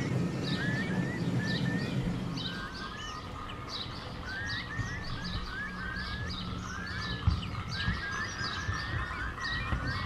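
Small birds chirping and singing all through, many short repeated calls. Under them, the low rumble of the passing model goods train fades after about two and a half seconds, and a couple of sharp clicks come in the second half.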